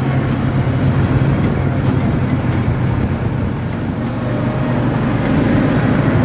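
ATV engine running steadily while riding, easing off slightly about four seconds in and picking up again near the end.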